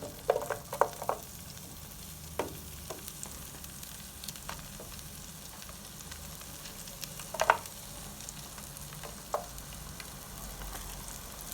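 Onion sautéing in melted butter in a pot, sizzling steadily, with a utensil knocking against the pot: a quick run of knocks about a second in, then single knocks now and then as it is stirred.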